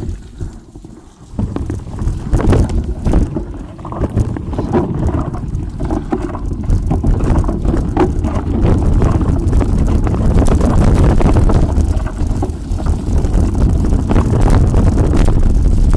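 Wind buffeting the camera microphone on a fast mountain-bike descent, with the tyres rumbling and the bike rattling and knocking over a rough, muddy track. It gets much louder about a second in and stays loud.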